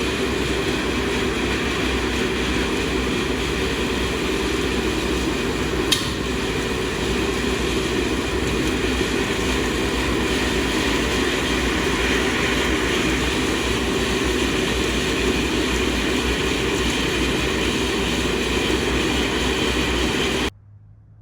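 Sandblaster blasting the steel sprayer frame: a loud, steady hiss and rumble that starts and cuts off abruptly, with one short click about six seconds in.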